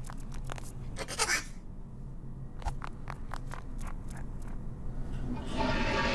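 Cartoon sound effects: a run of quick clicks and taps with a short scratchy rasp about a second in, then music swelling in near the end.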